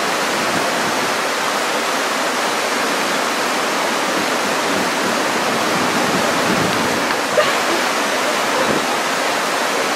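Fast river running over rocks and rapids: a steady, loud rush of white water.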